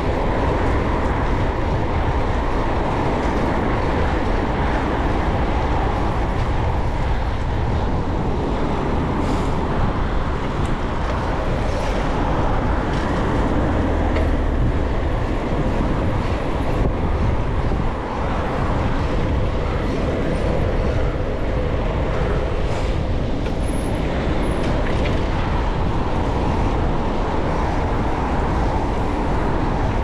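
City road traffic heard from a bicycle moving among cars: a loud, steady rumble of engines and tyres without a break.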